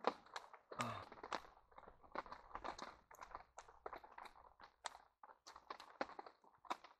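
Faint, irregular rustling and light clicks and taps from close-up handling of clothing and camp gear.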